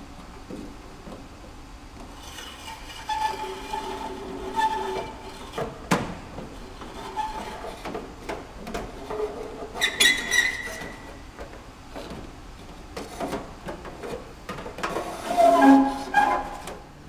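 Tubing being pushed through the inside of a Cessna 172's aluminium wing, scraping and squeaking against the structure in irregular spells, with one sharp knock about six seconds in.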